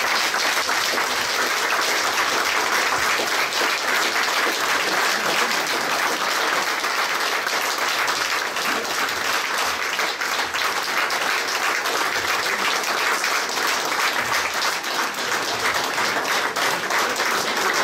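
Audience applauding: many hands clapping in a dense, steady wash of applause.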